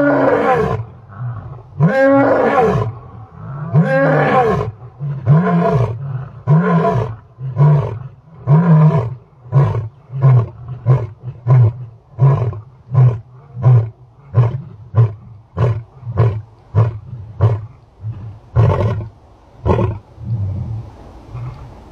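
Male lion roaring: three long full roars, then a run of shorter, quicker grunting roars that trails off about twenty seconds in.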